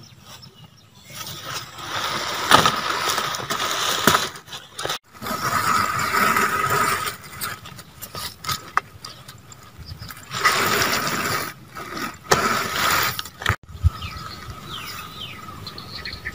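Fresh banana leaf rustling and crinkling under the hands as a spiced little-fish mixture is piled onto it, in irregular bursts with a few sharp clicks.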